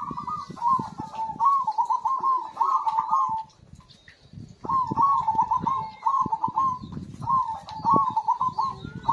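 Zebra dove (perkutut) in full song, cooing in runs of rolling, warbling notes, with a pause of about a second just before the middle.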